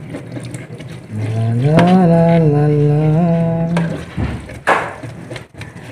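A person singing a slow tune without clear words, holding long, gently wavering notes, with a short rush of noise near the end.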